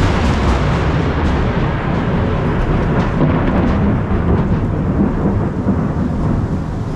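A loud thunderclap breaking suddenly, then a deep rumble rolling on for several seconds and easing slightly near the end, with steady rain falling underneath.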